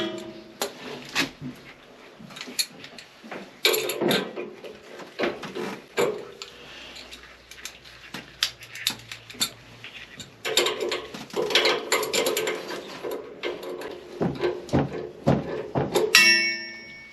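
Irregular clanks and knocks of tools and metal parts being handled while working on steam boiler piping, with a brief ringing tone near the end.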